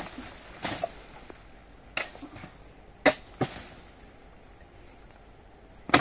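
Oil palm harvesting chisel (dodos) on a long pole jabbed into the tough base of a palm frond: a string of sharp chopping strikes at uneven intervals, about five in all, with the loudest one just before the end.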